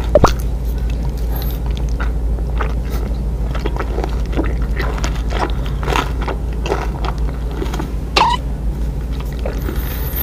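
Close-miked chewing of a soft mochi daifuku, with many small wet clicks and lip smacks of the mouth, over a steady low hum.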